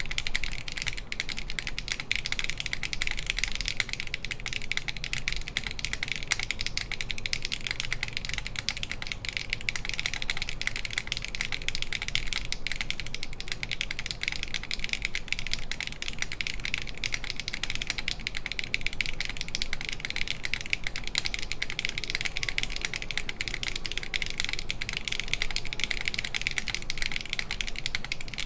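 Continuous typing on a SINGAKBD Kohaku mechanical keyboard with an aluminum full plate, GMK Lavender ABS keycaps and stock HMX Hyacinth V2U linear switches: a dense, unbroken stream of sharp keystroke clacks.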